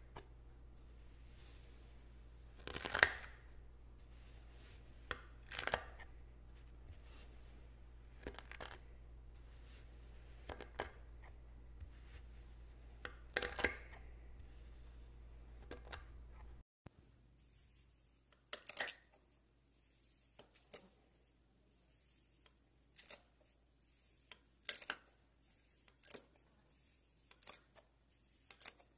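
A knife blade slicing through a block of kinetic sand, each cut a short crisp crunch. The cuts come every two to three seconds, then more often in the last ten seconds.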